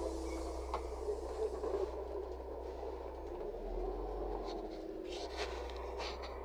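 Steady low drone inside a LiAZ 5292.67 city bus's passenger cabin. Light scraping and rustling sounds sit on top, with a faint tap about a second in and a few short sharp clicks and rustles between four and six seconds in.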